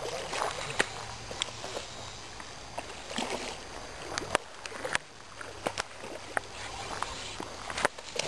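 Hooked rainbow trout splashing and thrashing at the water's surface while it is played on a spinning rod, with scattered sharp clicks.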